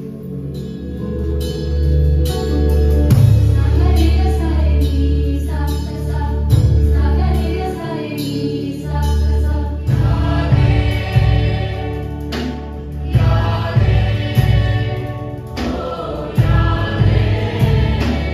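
A choir singing a song over instrumental accompaniment with a strong low bass, pausing briefly between phrases.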